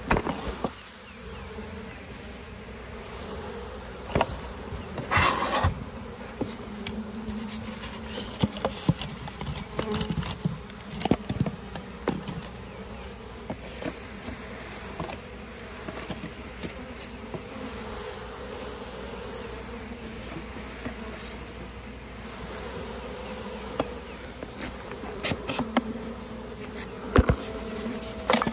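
A crowd of honeybees buzzing around the mini mating nucs, a steady drone throughout, with scattered short clicks and knocks over it.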